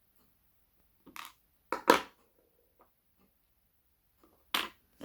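A handful of separate knocks and clatters of hard objects being handled, as a lock and its picking tools are moved and set down; the loudest is a sharp double knock about two seconds in, with another near the end.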